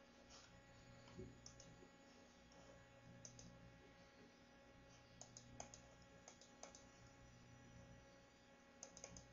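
Near silence with faint, scattered clicks of a computer mouse, some coming in quick runs of two or three.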